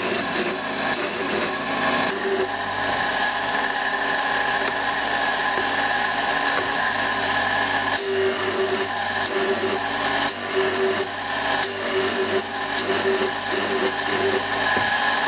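Tool and cutter grinder running steadily while a twist drill in a sharpening attachment is ground on the side of the wheel. The grinding hiss comes and goes in repeated passes as the drill is swept back and forth across the stone, more often in the second half.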